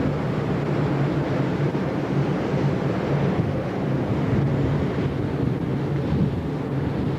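Steady low rumble of the car ferry MV Bretagne's engines, with a constant hum, mixed with wind blowing across the camcorder microphone on the open deck.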